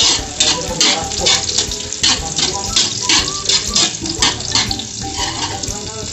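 A metal spatula scrapes and clanks against a steel wok in quick repeated strokes, about two or three a second, stirring sliced onions and garlic frying in oil.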